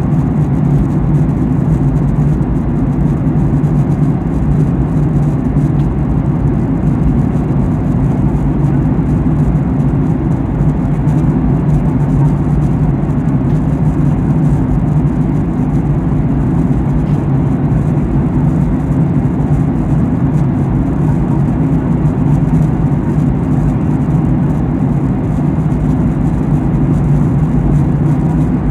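Steady, loud cabin drone of a Boeing 737-800 in flight: its CFM56 turbofan engines and the rush of air over the fuselage, heard from a passenger seat as a low, even roar without change.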